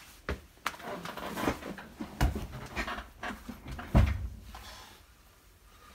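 Handling noise from a phone being carried and turned: a run of knocks and rustling, with two louder thumps about two and four seconds in.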